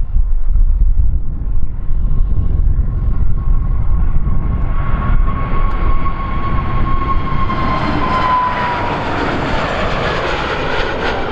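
An aircraft at takeoff power passing by, its engine whine and noise building and the whine dropping in pitch as it goes past, over wind rumbling on the microphone.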